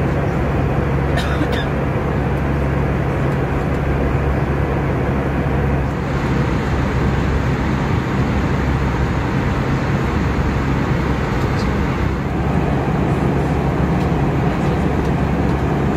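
Steady in-flight cabin noise of an Airbus A320-200, the engine drone and airflow rush heard from inside the cabin, with a low hum and a few faint clicks about a second in.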